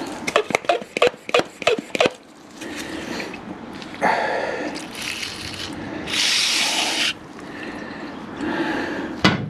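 Aerosol brake cleaner sprayed onto a scooter's oil strainer mesh: a shorter spray about four seconds in, then a strong hiss lasting about a second from about six seconds in. In the first two seconds, quick clicks and rubbing come from the gloved hands handling the parts.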